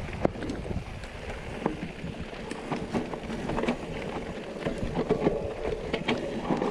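Mountain bike rolling down a rough dirt trail: tyres crunching over dirt and stones, with scattered knocks and rattles from the bike over the bumps and a low wind rumble on the microphone.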